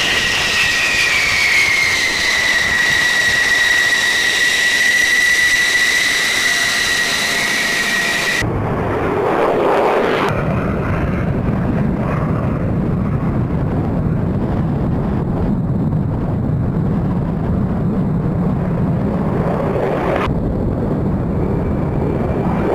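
F-16 fighter jet engine. A high, steady turbine whine at close range, falling slightly in pitch, gives way about eight seconds in to the deep roar of an F-16 taking off and climbing, with an abrupt change near the end.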